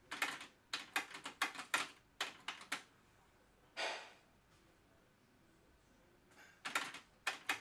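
Pioneer CT-S430S cassette deck's transport mechanism clicking and clunking in quick clusters of several clicks, with one short, smoother burst of noise about four seconds in and another run of clicks near the end, as the mechanism shifts between modes during its Super Auto BLE tape calibration.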